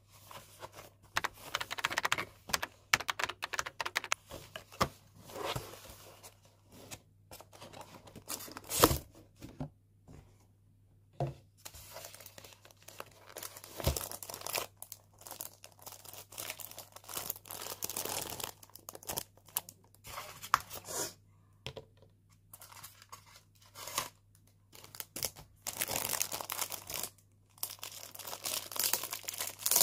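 Unboxing a cassette player: clear plastic bags crinkling and tearing while the box and polystyrene insert are handled, in irregular rustling bursts with pauses and a few sharp knocks, the loudest about nine seconds in.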